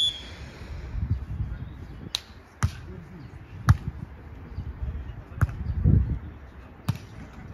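Short referee's whistle blast right at the start, then a beach volleyball rally: several sharp hand-on-ball hits, roughly one every second or so, with low rumbling noise between them.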